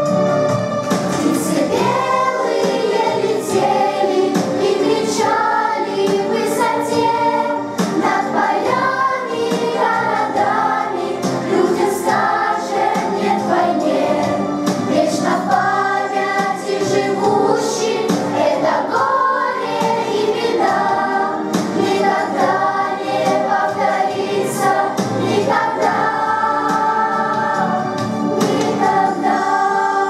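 Children's choir singing a song with piano or keyboard accompaniment.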